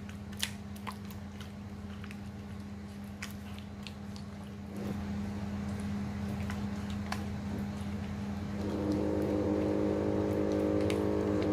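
Wet squelching and sticky clicks of a gloved hand kneading pork in thick char siu marinade in a plastic bowl. Underneath runs a steady motor hum that gets louder about halfway through, and louder again with a deeper drone near the end.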